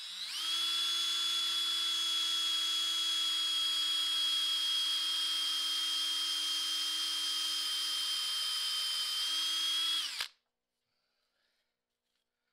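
Cordless drill boring a hole through a small block of HDPE (high-density polyethylene). The motor whine rises briefly as it spins up, holds a steady pitch for about ten seconds, then cuts off suddenly.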